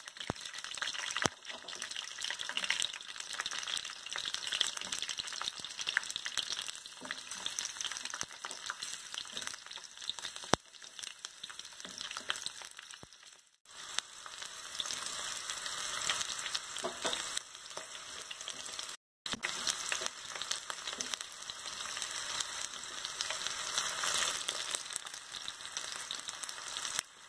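Green chillies frying in hot oil in a pan: a steady sizzle and crackle with scattered sharp pops and stirring. The sound drops out briefly twice around the middle.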